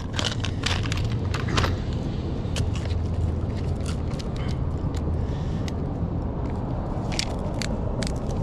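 Light metallic clicks and clinks as a 3/16-inch drill bit is picked from a plastic bit case and fitted into a cordless drill's keyless chuck, over a steady low vehicle rumble.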